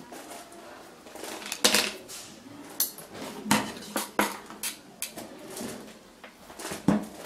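Handling noise: irregular sharp clicks and knocks as plastic headphones, a smartphone and an audio splitter cable are picked up, set down and plugged in on a wooden table.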